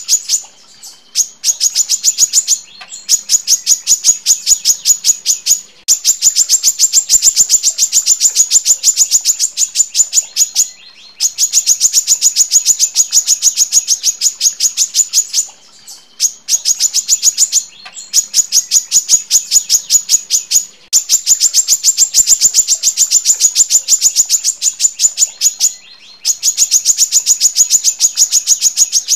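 Female brown-throated sunbird calling in long, rapid trains of sharp high chips, about eight a second. The runs last a few seconds each, with brief pauses between them.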